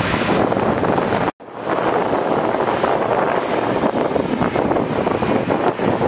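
A John Deere T670 combine harvester running as it harvests grain, largely covered by wind buffeting the microphone. The sound cuts out for a moment a little over a second in.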